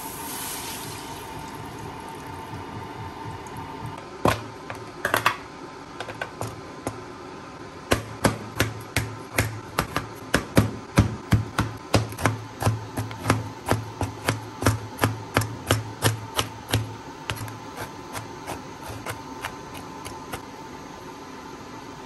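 Sharp knocks with a dull thud, a couple on their own and then a steady run of about three a second for some nine seconds, dying away into lighter taps, over a faint steady hum.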